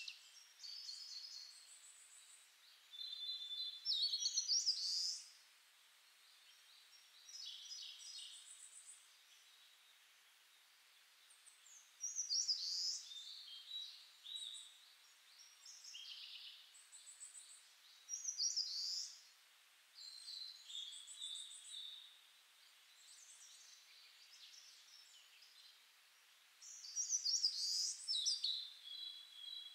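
Small birds chirping and trilling in short phrases every couple of seconds, over a faint steady hiss.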